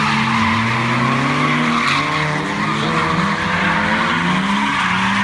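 Drift cars sliding sideways in tandem: their tyres screech continuously while their engines rev up and down.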